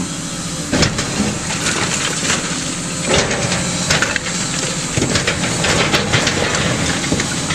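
Heavy demolition machinery running steadily while a brick school building is torn down, with irregular cracks and crunches of breaking, falling debris, the sharpest about a second in and again around three seconds in.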